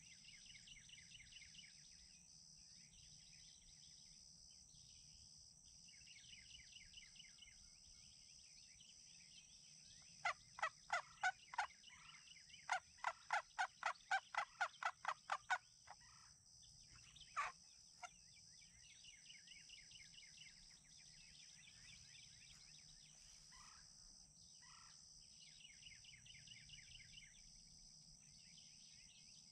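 A series of turkey yelps: loud, evenly spaced notes at about four a second for some five seconds with a brief break, then two more notes shortly after. Small songbirds trill repeatedly in the background.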